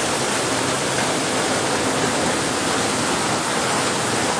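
Heavy typhoon rain and fast-flowing floodwater rushing along a street, a steady, even rush of water.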